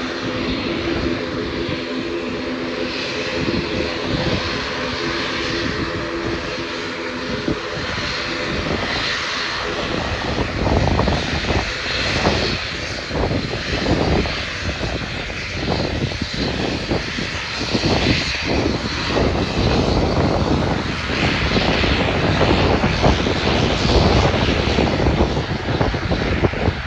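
ATR 72-600 twin-turboprop airliner's engines and propellers running: a steady propeller drone with several held tones for the first eight seconds or so, then giving way to a rougher, fluctuating rush of noise.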